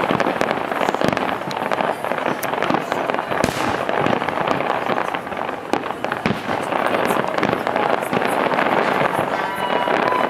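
Aerial fireworks bursting overhead: a dense, unbroken crackle of bursting shells with many sharp bangs mixed in.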